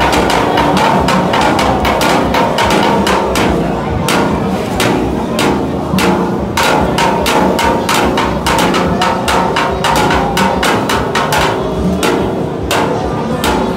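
Street percussion: rapid, sharp knocks and strikes several times a second over steady held tones, played as music.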